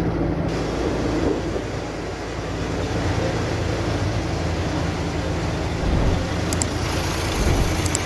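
Fire engines' diesel engines running at the scene: a steady low hum under a broad, constant rushing noise.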